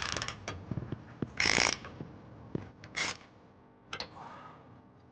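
Ratchet wrench with a 10 mm socket clicking in quick strokes as a bolt on a trailer-wiring mounting bracket is snugged down, with a few short metallic rasps.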